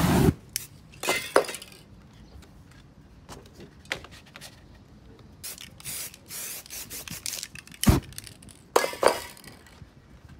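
Aerosol spray paint cans hissing in short bursts, with metallic clinks of the cans being handled and a sharp knock a little before the end. It opens with a loud whoosh of flame as the paint spray is set alight over the canvas.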